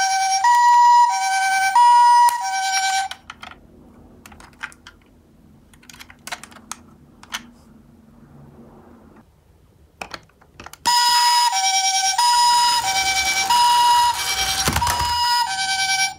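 Toy HiMedic ambulance's electronic siren playing the two-tone hi-lo call through its small speaker. It alternates between two pitches about every half second and cuts off about three seconds in. Faint plastic clicks follow from handling the toy, then the siren starts again about eleven seconds in and stops near the end.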